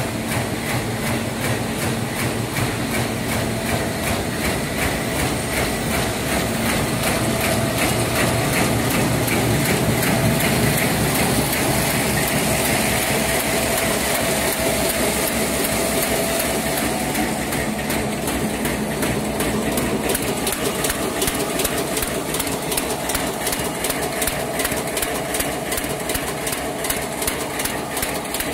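LSD 700B automatic high-speed paper bag making machine running in production: a steady mechanical clatter of rapid, even clicking over a continuous hum.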